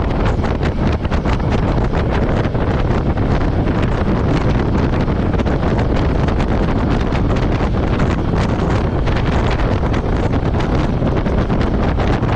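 Royal Enfield Meteor 350 motorcycle running on the move, its engine largely buried under heavy wind buffeting on the action-camera microphone. Steady throughout.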